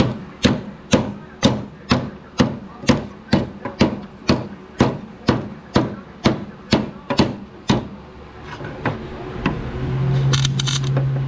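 A hammer strikes metal on the mower deck in a steady rhythm, about two blows a second, for some eight seconds. Near the end a low hum starts, with short crackling bursts of welding.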